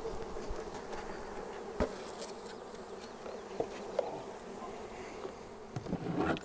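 Honeybees buzzing en masse around an open hive, just shaken out of their package into it. A sharp knock sounds about two seconds in, with a few lighter knocks later.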